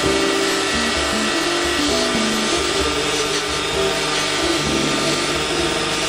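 Bench buffer running, its cloth buffing wheel rubbing against an aluminium top bridge as it is polished with compound, a steady hiss. Background music with a bass line plays over it.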